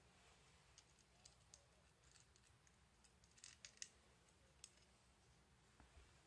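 Faint scattered clicks and taps of small parts being handled: a metal pan-tilt bracket being fitted onto a servo horn, with a quick cluster of clicks a little past the middle.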